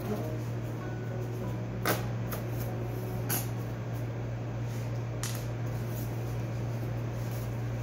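Plastic squeeze bottle of sauce being opened and squeezed, giving three sharp clicks spaced about one and a half to two seconds apart over a steady low hum.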